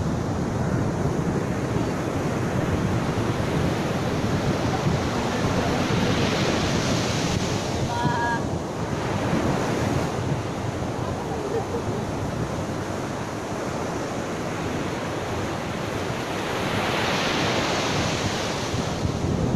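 Ocean surf breaking on a beach in a steady wash, with wind buffeting the microphone. The surge swells twice, about six seconds in and again near the end, as larger waves break.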